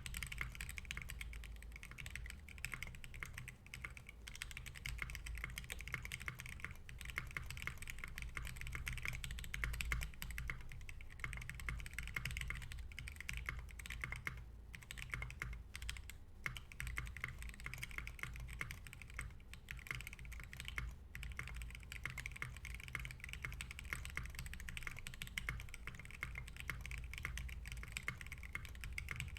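Custom Adélie mechanical keyboard with Novel Keys Silk Yellow linear switches and Kat Alpha keycaps being typed on continuously: a dense, fast run of keystrokes with a few brief pauses.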